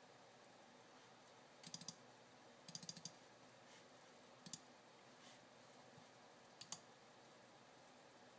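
Computer keyboard keys tapped in short quick bursts: three or four clicks, then five or six, then two pairs of clicks a couple of seconds apart, over a faint room hiss.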